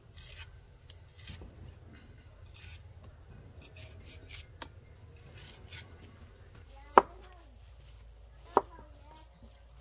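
Knife cutting food on a cutting board: light slicing and scraping strokes, then two sharp knocks about a second and a half apart near the end.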